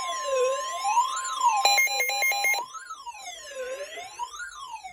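Weather radio warning alarm: a steady single-pitch alert tone, the NOAA Weather Radio 1050 Hz warning tone, with a siren-like tone sweeping up and down about once every second and a half over it. About two seconds in comes a short run of stepped beeps; after about two and a half seconds the steady tone drops away and only the sweeping siren tone goes on, quieter.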